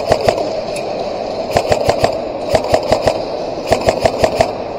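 Airsoft guns firing short bursts of rapid shots, a burst about every second, with a steady background hiss under them.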